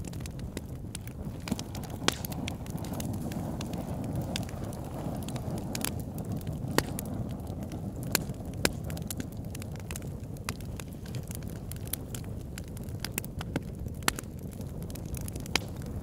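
Wood campfire crackling, with frequent sharp snaps and a few louder pops over a steady low rumble.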